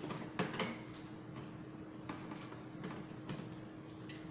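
Plastic clicks and knocks from the handpiece of a HIFU vaginal-tightening machine being handled and set back into its holder, the loudest pair about half a second in, with a few lighter taps after. A faint steady hum runs underneath.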